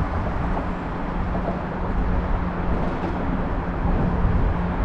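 Steady low engine drone with a constant hum and no breaks.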